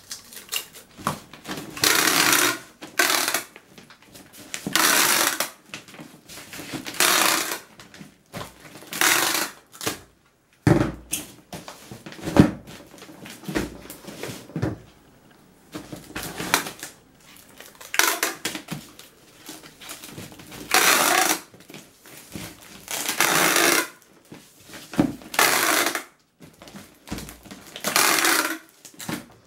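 Clear packing tape pulled off a handheld tape gun dispenser onto a paper-wrapped cardboard box, in about ten separate pulls of a second or less each, with a few knocks in between.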